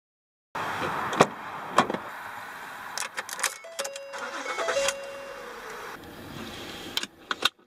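Inside a car, the ignition key is turned and the engine cranks and starts, with a pitched whine from about four to five and a half seconds. Sharp clicks from the key and, near the end, from the automatic gear selector being moved.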